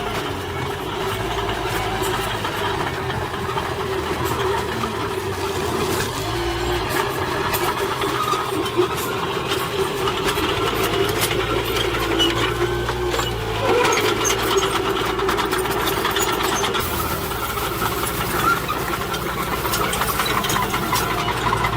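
Heavy diesel construction machinery running steadily, with a low drone and a continual light clatter of clicks over it.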